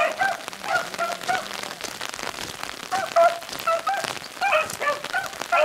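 A pack of beagles giving tongue on a rabbit's track: short, repeated hound cries, irregular but almost continuous, over a steady patter of rain.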